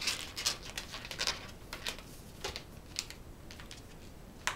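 Inflated latex modelling balloon squeaking and rubbing under the fingers as its two ends are knotted together. There are short, irregular squeaks and taps, most of them in the first two seconds, with a sharper one near the end.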